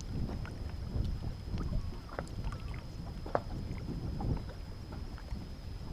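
Wind rumbling on the microphone out on a small fishing boat, with scattered light knocks and ticks and a faint steady high-pitched tone.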